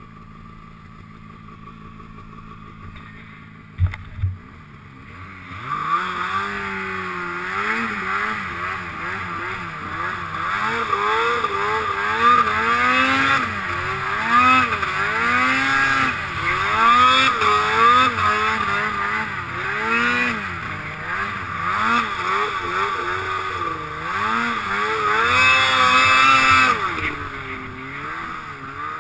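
Snowmobile two-stroke engine fitted with an 880 big bore kit, being broken in. It runs quietly for the first few seconds, with one short thump, then revs up and down over and over as the sled rides, and eases off near the end.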